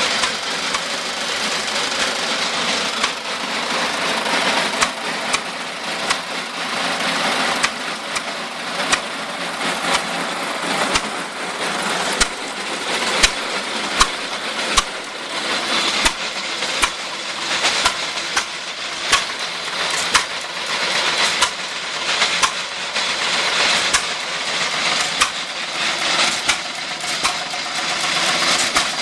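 Restored Letz feed grinder running, driven by a hit-and-miss engine: a steady mechanical rush and clatter, with sharp engine pops about once a second.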